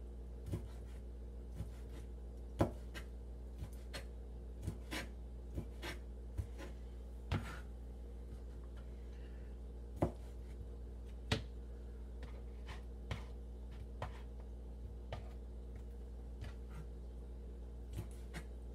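Chef's knife chopping shrimp on a plastic cutting board: irregular sharp knocks of the blade striking the board, roughly one a second, over a steady low hum.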